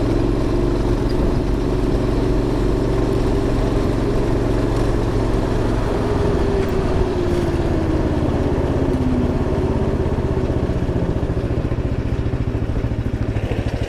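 A go-kart's Predator 420cc single-cylinder engine running under throttle as the kart drives. About seven seconds in the engine note drops, and near the end it settles into a slower, pulsing beat as the kart slows for a turn.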